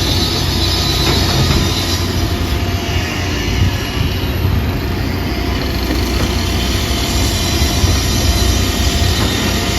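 Train running past with a steady heavy rumble and faint high wheel squeal.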